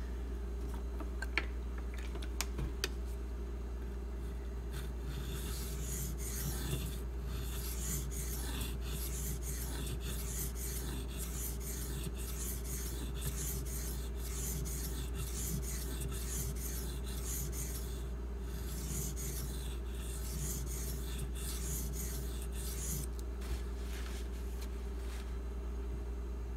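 Pocketknife's 1095 carbon-steel blade being ground on a Shapton Glass whetstone: a few light clicks as the blade is set down, then a steady run of back-and-forth scraping strokes from about five seconds in until near the end, over a low steady hum.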